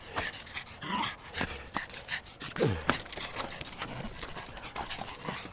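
Jack Russell terrier panting and snuffling as he pushes a soccer ball with his nose, among frequent quick taps and scuffs. One short falling whine just over halfway through.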